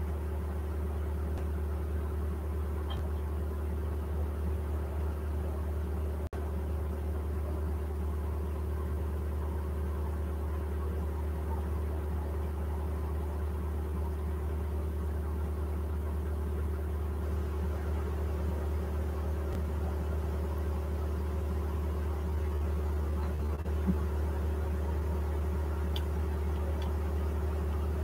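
Steady low machine hum with a few faint even tones above it, unchanging throughout; a brief dropout about six seconds in and a faint click near the end.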